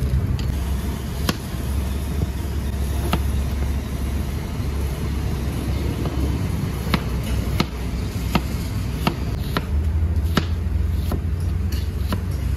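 Steady low roar of a high-flame gas wok burner, with about a dozen sharp knocks at uneven intervals from a spatula striking the wok during stir-frying.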